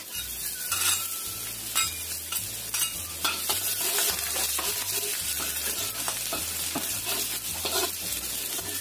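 Garlic sizzling steadily in hot oil in a pan, being fried toward light brown, with frequent clicks and scrapes of a utensil stirring it against the pan.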